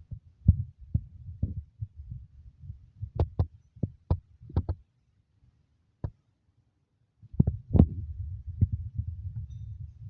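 Handwork fixing a window-blind bracket to a wall with a screwdriver: irregular sharp knocks and clicks over a low rumble. The sound drops out for about two seconds midway.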